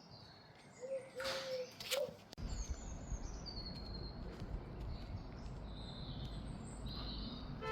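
Birds chirping in short high calls over a steady low background rumble that sets in about two seconds in. A brief louder noise comes about a second in.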